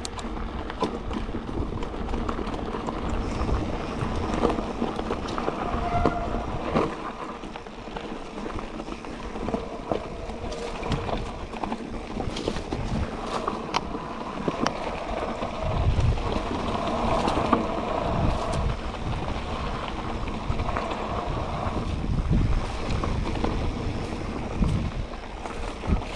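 Mountain bike descending a dirt trail: wind rumbling on the microphone, tyre noise on the ground, and frequent knocks and rattles from the bike over rough terrain.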